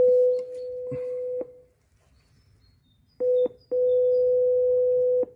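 A video door intercom plays its electronic call tone through its speaker after the bell button is pressed. A steady beep ends about a second and a half in. After a pause comes a short beep, then a longer steady beep of about a second and a half, which signals that the call is ringing through and waiting to be answered.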